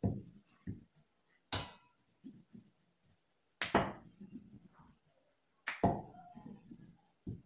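Five sharp knocks about two seconds apart, with softer thuds between, from a handheld bowl of dry flour as roti dough balls are worked and coated in it. A faint steady high whine runs underneath.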